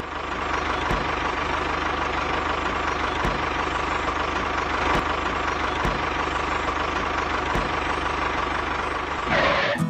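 Tractor engine running steadily with a fast, even knock and a constant hum. A brief louder noisy burst comes near the end.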